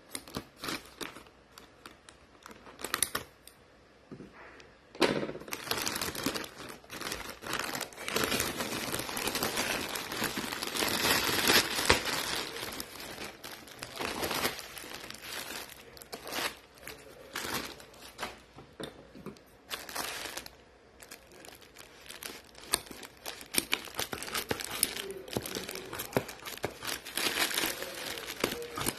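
Plastic courier mailer being cut with scissors and torn open, crinkling, then a bubble-wrapped package rustling and crackling as it is pulled out and handled. The crinkling is loudest and most continuous for several seconds in the first half.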